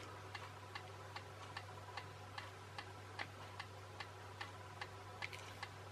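Faint, even ticking, about two and a half ticks a second, over a low steady electrical hum.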